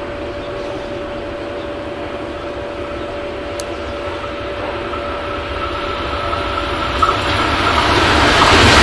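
ETR.500 Frecciarossa high-speed train approaching at speed: the rush of its wheels on the rails grows steadily louder, then swells sharply near the end as it nears. A steady hum runs underneath.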